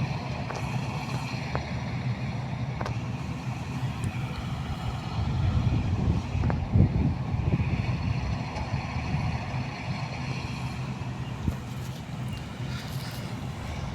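Combine harvester engine and machinery running steadily, getting louder for a couple of seconds around the middle, with a few sharp clicks.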